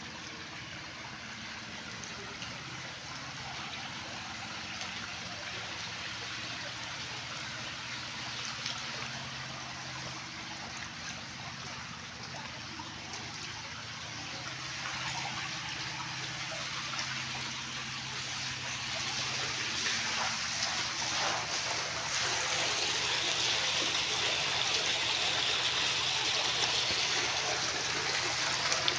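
Shallow water running and trickling over a concrete sill, a steady hiss that grows louder and splashier about two-thirds of the way through.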